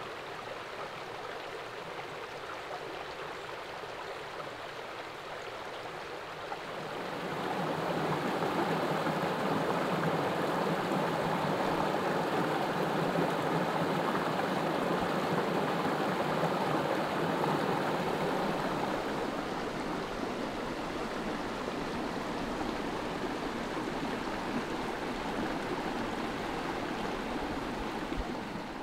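Shallow rocky woodland stream running over stones, growing louder about seven seconds in, where water pours through a small cascade between boulders.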